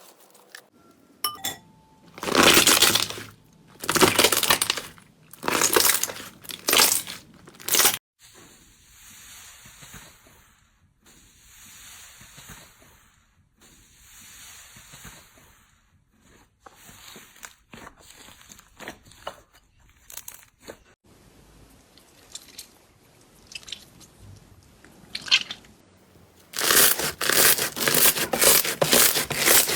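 Slime being squeezed and pressed by hand, making crunchy crackling squishes: a few loud crunches about a second apart, then a run of softer squishes, and near the end a dense, rapid crackle.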